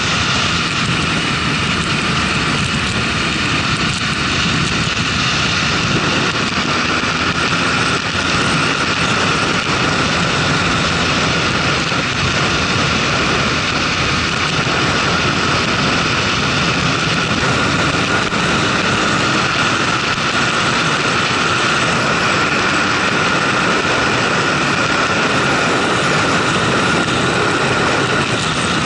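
Motorcycle engine running at highway speed under steady wind rush on the onboard camera's microphone.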